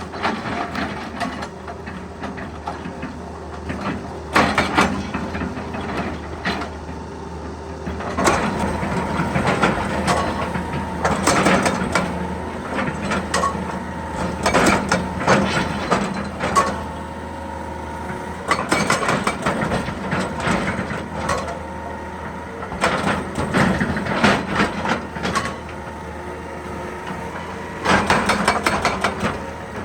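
Excavator engine running steadily, with repeated bursts of clattering and knocking that each last a second or two and come every few seconds.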